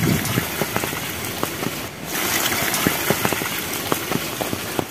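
Steady heavy rain, with many close, sharp drops tapping on an umbrella overhead.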